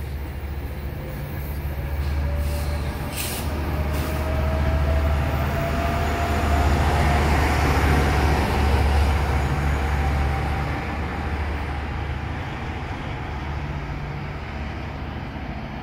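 Metrolink commuter train rolling past: bi-level coaches, then the diesel locomotive pushing at the rear, its engine rumble loudest about halfway through. A faint whine rises slowly in pitch, and the sound fades as the train moves off down the platform.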